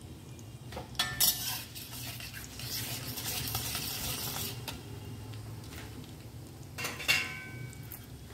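A steel spatula stirring and scraping in a steel kadai, with sharp scrapes about a second in and again near the end. Between them, hot oil sizzles around frying cumin, mustard seeds and dry red chillies.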